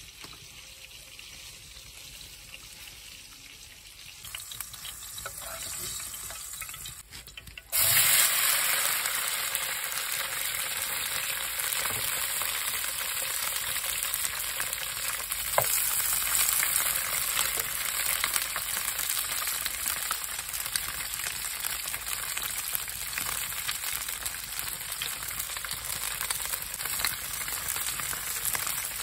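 Chopped green and red peppers sizzling steadily as they fry in a black iron pan over a wood fire. The sizzle starts suddenly about eight seconds in, after a much quieter opening, and carries on with an occasional sharp click.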